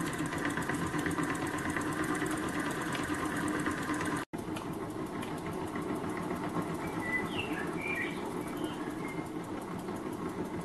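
Small homemade single-cylinder oscillating (wobbler) steam engine running steadily on steam from its boiler, with a fast, even beat. The sound breaks off for an instant about four seconds in.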